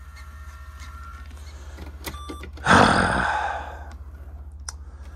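A few light clicks, then about three seconds in a loud rustle lasting about a second as a cleaning cloth is handled, over a steady low hum.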